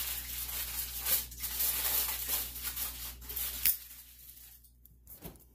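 Hands handling and sliding together the plastic pole sections of a Swiffer WetJet mop: rustling and scraping close to the microphone, with a sharp click about two-thirds of the way through, after which it goes quiet.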